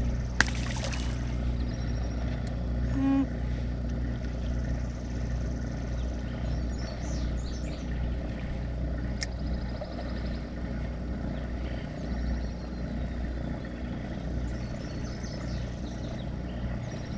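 Steady low hum of a boat's motor. About half a second in there is a short splash as a released crappie drops into the water.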